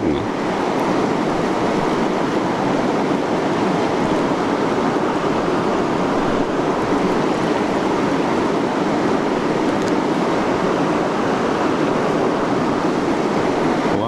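Steady rushing water, an even hiss with no single splashes or surges standing out.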